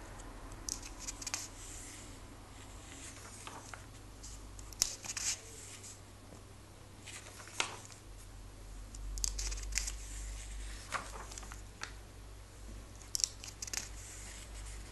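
Pages of a comic book being turned by hand: several separate turns, each a short, crisp rustle and flap of paper, with quieter pauses between them.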